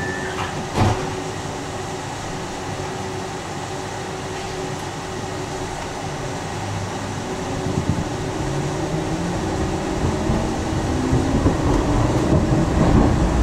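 Tram interior: a last short warning beep and a sharp knock near the start, then a steady hum. From about eight seconds in, the traction motors whine with rising pitch and grow louder as the tram pulls away and gathers speed.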